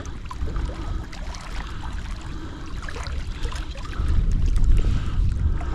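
Wind buffeting the microphone as a low rumble, with small waves lapping against breakwater rocks. The wind gusts harder about four seconds in.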